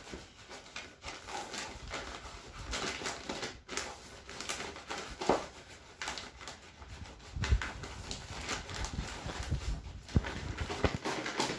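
Clear plastic bag crinkling and rustling while a scoop fills it with crumbly crushed-boilie and micro-pellet stick mix, with irregular scrapes and a few soft knocks.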